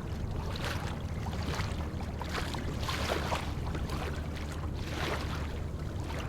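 Wind and water noise on a fishing kayak: a steady low rumble with irregular short splashy hisses.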